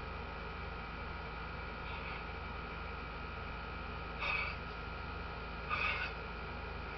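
Steady low electrical hum, with three brief soft scratchy noises: a faint one about two seconds in, then two louder ones a little after four seconds and near six seconds.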